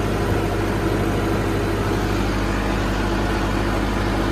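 Massey Ferguson 385 tractor's four-cylinder diesel engine running steadily under load, pulling a rotavator through the soil.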